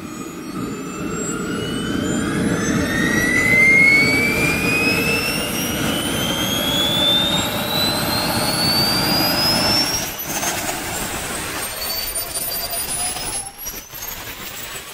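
Swiwin 300 model jet turbine running, a loud rushing exhaust with a high whine that climbs steadily in pitch as the turbine spools up. About ten seconds in the level drops, while fainter high tones keep rising.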